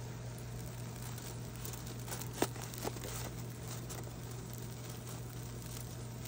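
Aluminium foil crinkling softly under hands pressing raw burger patties flat, with a small sharp click about two and a half seconds in, over a steady low hum.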